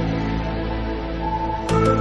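Background music of held notes, changing chord about a second and a half in, with sharp ticks coming in as it swells.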